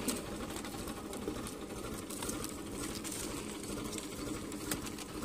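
Tractor's diesel engine running steadily, with a few light knocks.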